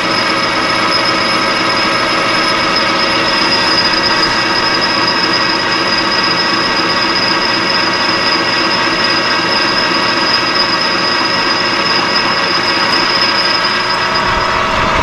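Metal lathe running while taking a light turning cut on the edge of a half-inch aluminum plate, making it round; a steady machine whine with a high-pitched ring over it.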